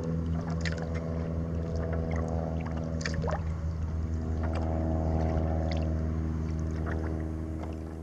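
A steady low engine hum, with scattered light water splashes and drips over it; the hum eases off near the end.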